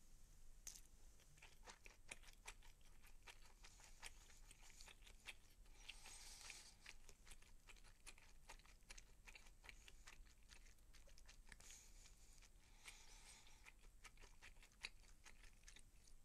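Faint close-up chewing: a person eating, with many small clicks from the mouth throughout.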